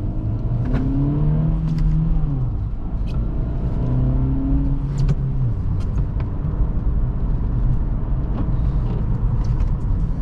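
A 2023 Acura Integra's 1.5-litre turbocharged four-cylinder, heard from inside the cabin while driving. The engine note climbs and drops back twice as the car accelerates and eases off, over a steady road rumble with a few light knocks.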